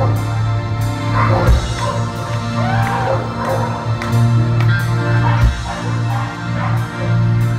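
Live rock band playing: keyboards and a sustained bass line, with cymbal strokes about twice a second and a note that bends up and back down a little before the middle.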